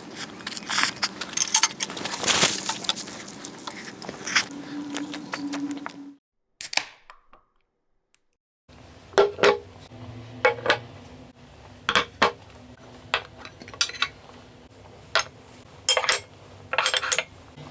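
Eating utensils clinking and scraping against dishes: a dense run of clinks, then, after a short total silence, a string of separate short clinks and knocks.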